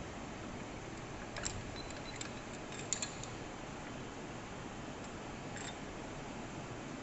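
A few light, sharp metallic clicks at a metal lathe, the loudest a pair about three seconds in, over a steady workshop hum.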